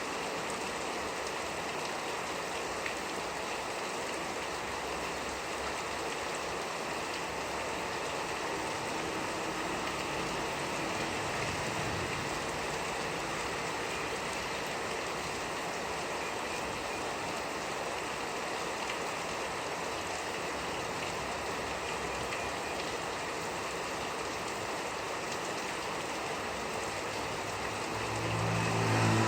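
Steady rain falling, an even hiss of drops on the surfaces around the house. Near the end a low rumble builds.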